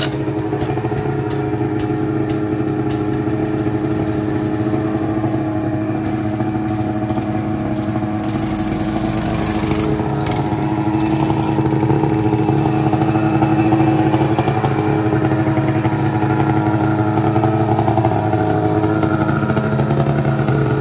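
Small gasoline engines running steadily: a two-stroke snowmobile engine idling with a small single-cylinder mini bike engine running close by, both freshly pull-started. The engine sound grows a little louder about twelve seconds in.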